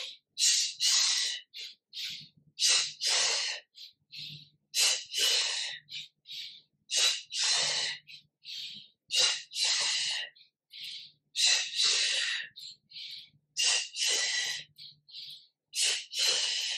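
A person breathing quickly and audibly, short forceful breaths in and out at about two a second, paced to a sped-up seated yoga movement that arches and rounds the spine.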